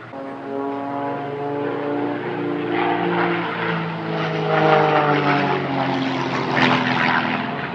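Propeller-driven aerobatic planes flying past, their engines droning loudly. The notes of several engines overlap and drift slightly in pitch as the planes pass.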